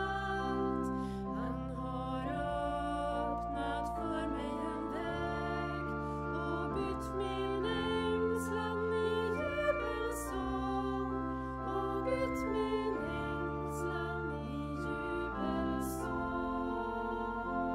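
A hymn sung to organ accompaniment: sustained organ chords changing every second or two under a slow sung melody.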